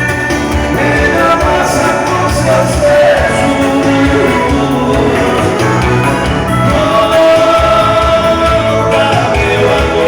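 Band music with a steady bass beat and long held melody notes.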